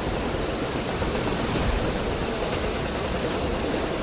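Steady rushing noise of a heavy torrent of floodwater churning into white spray.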